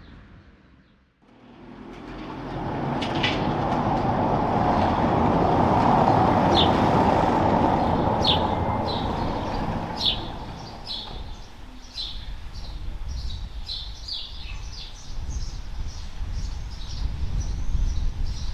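A vehicle passing by, its noise swelling over a few seconds and then fading. After that come many short, high bird chirps over a low outdoor rumble.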